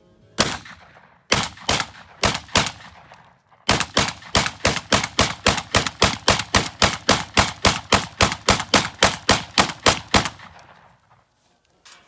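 Shotgun fired rapidly from a 30-round magazine: one shot, four more about half a second apart, then a long even string at about three to four shots a second that stops about ten seconds in.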